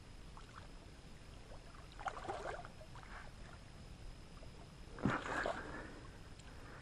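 Water splashing as a landing net is pushed through shallow lake water and a hooked fish thrashes at the surface beside it: a few splashes about two seconds in, and a louder burst of splashing about five seconds in.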